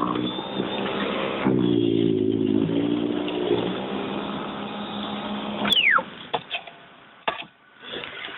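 EGO 21-inch battery-powered single-stage snowblower running steadily with the hum of its electric motor and auger. About six seconds in it is switched off, and the motor whines quickly down in pitch as it spins to a stop; a few faint clicks and rustles follow.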